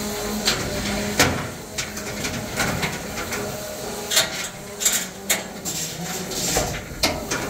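Beetleweight combat robots hitting each other and the arena wall: about a dozen sharp, irregular clanks and bangs over several seconds, with crowd chatter underneath.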